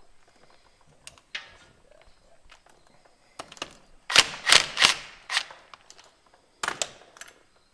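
A series of sharp knocks from work on truck parts: a single knock, then a quick run of about five loud strikes, then two more near the end.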